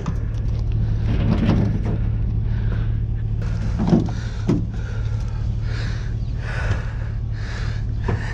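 Vehicle engine idling steadily, with a few short knocks about four seconds in as a very heavy item is wrestled at.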